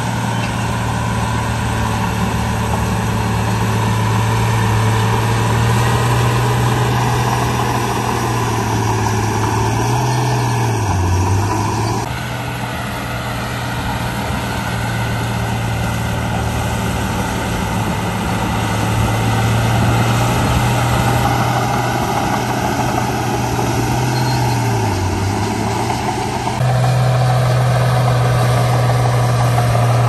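Heavy diesel engine of earthmoving machinery running steadily, its pitch dipping briefly twice, about ten seconds in and again near twenty-five seconds. The overall sound shifts abruptly about twelve seconds in and again near twenty-seven seconds.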